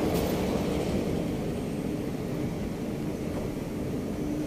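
Escalator running: a steady low mechanical hum with a faint steady tone.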